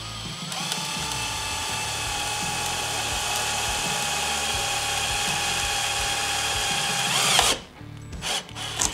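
Cordless drill with a 5.5 mm bit running at a steady whine for about seven seconds as it drills a mirror-mount hole through a snowmobile windshield, then winding down and stopping. A few short knocks follow near the end.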